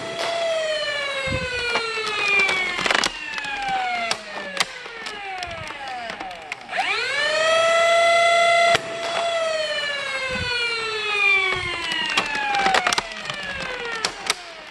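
Flywheel motors of a battery-powered BlasterCore afterburner on a Nerf Longstrike whining: the pitch falls slowly as they wind down, rises again about six and a half seconds in, holds, then falls once more after about nine seconds. Sharp clacks from the blaster being fired cut through the whine.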